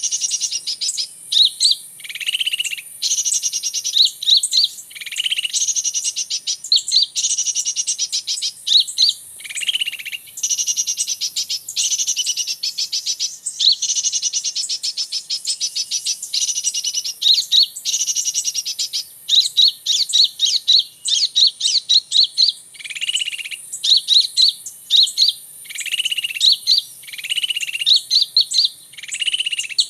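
Small songbirds calling steadily: high chirps and fast trills, broken every couple of seconds by a lower, slurred note, in a repeating pattern.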